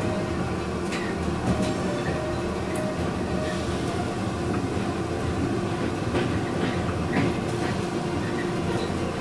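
Electric suburban train running along the track, heard from on board: a steady rolling rumble with a few scattered clicks from the wheels over the rails.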